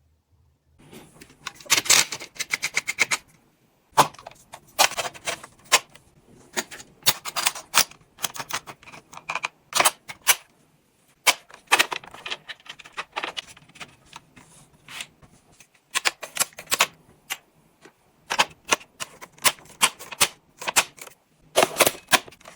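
Irregular clusters of sharp clicks and rattles from an HK416D toy gel blaster being handled and its parts snapped together.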